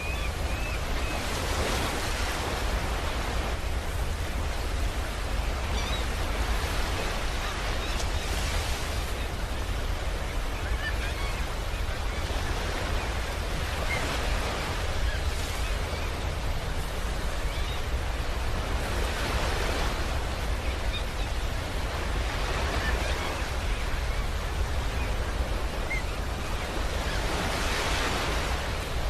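Space-ambience sound effect presented as the sound of the star UY Scuti: a steady deep rumble under a noisy hiss that swells and fades every few seconds, like surf, with a few faint chirps.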